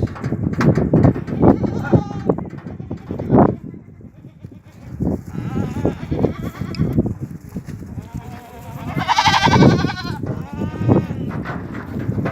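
Goats bleating, several calls one after another, the loudest a long call about nine seconds in.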